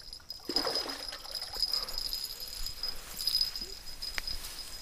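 A hooked fish splashing at the water's surface as it is reeled to the bank, with grass rustling as it is reached for. A steady high insect trill runs underneath.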